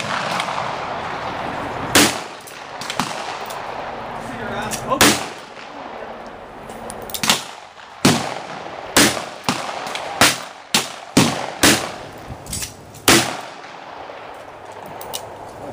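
Single shots from a 1960s Smith & Wesson .38 Special revolver, about ten loud cracks at an uneven pace. They come closest together between about eight and twelve seconds in, with fainter bangs between.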